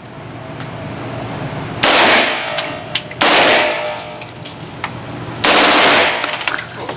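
Three short full-auto bursts from a machine gun, each about half a second long, spaced about a second and a half to two seconds apart, with a fading echo after each.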